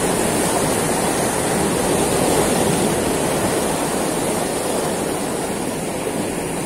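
Sea surf washing and breaking over shore rocks: a steady rush of water, swelling a little about two seconds in and easing toward the end.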